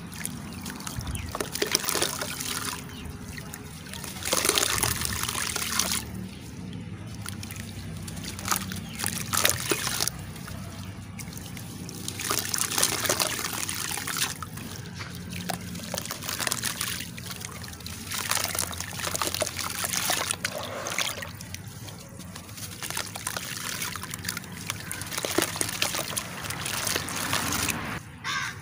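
Crumbly charcoal pieces being crushed and squeezed by hand in a tub of water: wet crumbling, sloshing and trickling in irregular surges.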